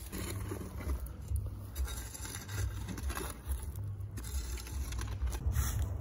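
A broom sweeping loose wood ash and dirt on bare ground in rough brushing strokes that grow clearer and louder near the end, over a steady low rumble.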